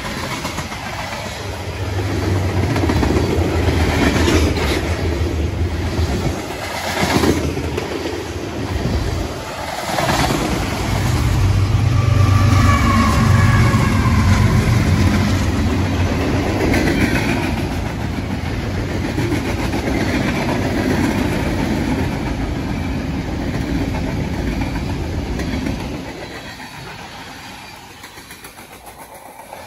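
A train rolling past, with a steady heavy rumble and clatter of wheels on the rails, a few sharp clanks and faint wheel squeals. It fades away near the end.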